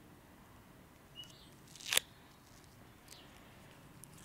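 Gorilla clear repair tape being peeled off its roll and wrapped around a card, with one short sharp peel about two seconds in and a fainter one about a second in.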